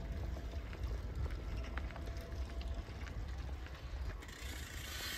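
Wind buffeting the microphone of a camera carried along on a moving bicycle: a steady low rumble with a few faint clicks and rattles over it.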